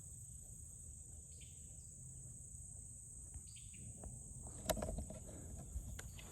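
Insects chirping in a steady high-pitched chorus, with a few short bird chirps. From about four and a half seconds in, footsteps and rustling through vegetation come in over it.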